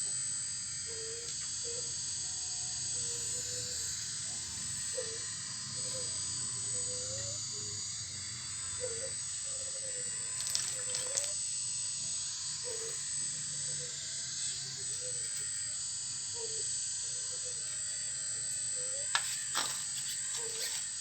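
Small electric motors of a full-metal RC excavator whining steadily as it digs rock and soil. A few sharp clicks come about halfway through and again near the end.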